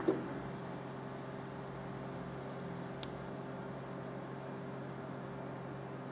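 Steady low hum over a soft even hiss, with a faint click about three seconds in.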